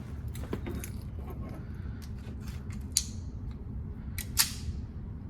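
Walther PPK/S .22 LR pistol firing two shots about a second and a half apart, each a sharp crack with a short fading echo, the second louder; light metallic clicks of the pistol being handled come before them.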